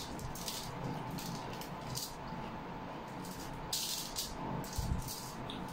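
Close-up eating sounds: chewing, lip smacks and finger licking, heard as short irregular crackling clicks while fried dried fish (tuyo) and rice are eaten by hand.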